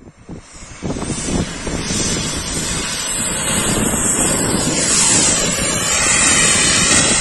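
Xicoy X45 model jet turbine running at high power, a steady hiss and high whine, with heavy wind buffeting on the microphone. The noise swells about a second in and stays loud.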